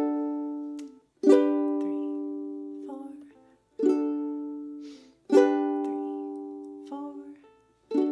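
Ukulele strummed in single chords, a strum every second or two, each left to ring and fade, moving between D and G chords.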